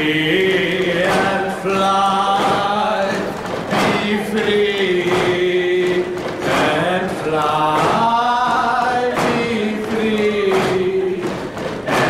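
Voices singing a slow chant with long held notes, with stomps on the floor and bangs on a table beating time, the 'boom boom bang' rhythm.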